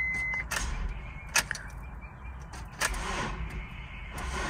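A car's warning chime beeps once, then a few sharp clicks as the ignition is tried, and the 2007 Honda CR-V does not start. This is the intermittent no-start that the mechanic puts down to a loose battery terminal and a battery hold-down that isn't holding.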